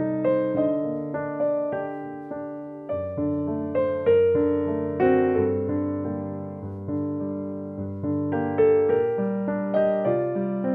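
Background piano music: single notes and chords struck about once or twice a second, each fading away, over held low notes.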